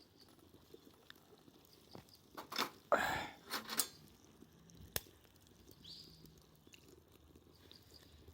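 A person eating hot food from the campfire: a few short mouth noises between about two and four seconds in, and one sharp click about five seconds in.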